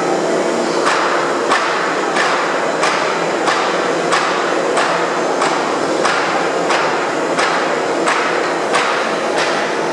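Droop & Rein FSM 1255 bed milling machine running. A sharp knock repeats evenly, about three times every two seconds, over a steady machine noise.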